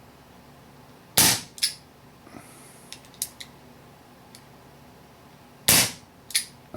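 Crosman 357 CO2 air pistol dry fired twice, about four and a half seconds apart. Each sharp pop is followed by a fainter click, and there are lighter mechanical clicks between the shots. The pistol is firing on gas again now that the fresh CO2 cartridge has been properly pierced: the fault is fixed.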